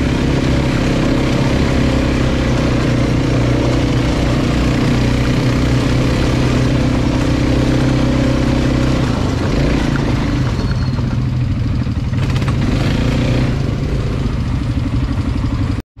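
ATV engine running with a steady drone that eases off about nine or ten seconds in, with some clatter. The sound cuts out briefly just before the end.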